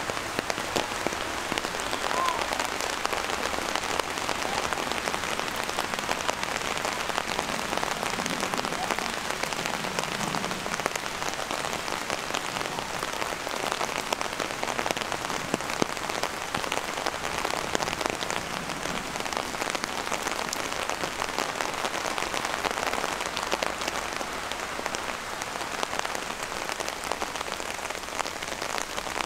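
Steady rain falling, with many sharp individual drop hits.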